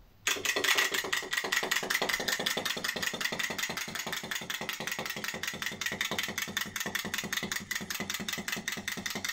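Clockwork motor of a wind-up tin toy frog running as it hops, a rapid, even clicking that starts a moment in.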